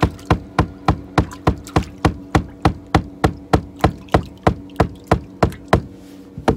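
A wooden stick pounded against the deck of a bass boat in a fast, even rhythm of about three to four knocks a second. The knocks stop about six seconds in, with one last knock near the end. This is 'beating the boat' to stir up perch below.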